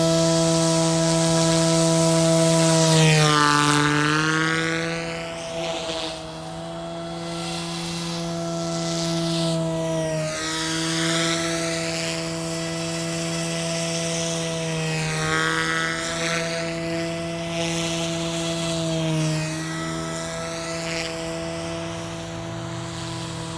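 SAB Goblin Fireball electric RC helicopter in flight, its main rotor and motor giving a steady buzzing whine. The pitch sags briefly a few times as it manoeuvres, the first dip about three seconds in and the deepest. It grows fainter after the first few seconds as it flies farther off.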